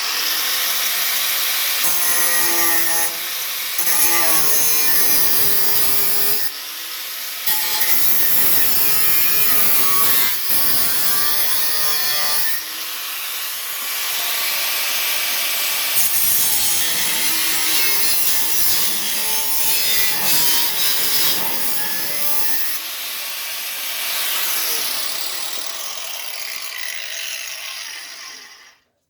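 Power cutting tool trimming out a section of sheet-steel car body, its motor pitch wavering as it bites under load, with several brief pauses; it stops abruptly near the end.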